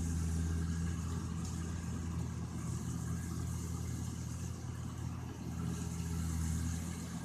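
Rice combine harvester's engine running steadily, a low even hum with a hiss above it.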